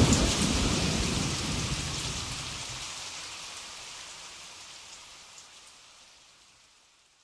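The hissing, rushing tail of a boom at the close of a remixed track, fading evenly away to silence about six and a half seconds in.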